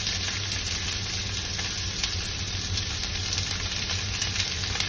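Chopped onions sizzling steadily in hot oil in a pan, with a few faint ticks.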